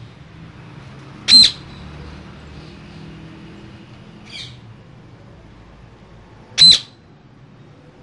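Caged parakeet giving two loud, short, high-pitched squawks about five seconds apart, with a fainter call between them.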